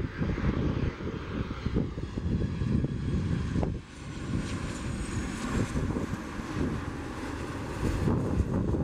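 Airbus A340-300's four jet engines heard as a low rumble while the airliner moves along the runway, with faint high engine whine coming in about halfway through. Wind gusts buffet the microphone throughout.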